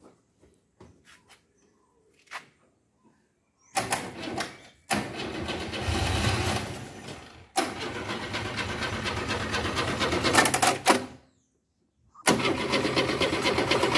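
The starter motor cranks the 1971 Ford Corcel's four-cylinder engine for about seven seconds without it firing, stops for a second, then cranks again near the end. The engine isn't catching because fuel isn't reaching it.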